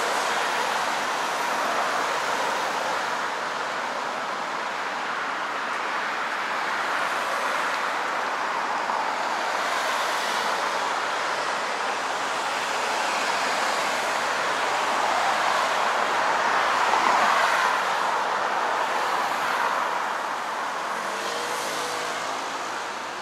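Road traffic: a steady wash of car and tyre noise that swells and fades as vehicles pass, loudest about seventeen seconds in.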